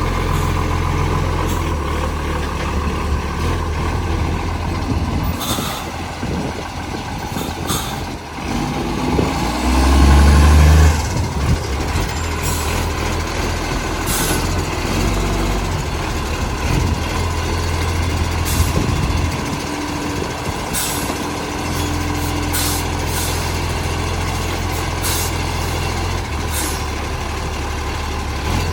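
Recycling garbage truck's diesel engine running, with an exhaust leak. It rises briefly about ten seconds in, and short air hisses come at intervals.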